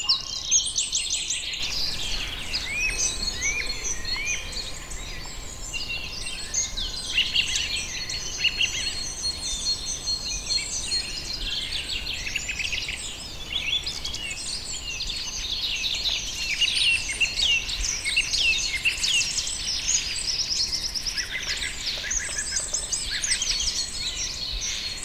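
Small songbirds chirping and singing over one another: a dense, unbroken run of short, high, quick calls and trills.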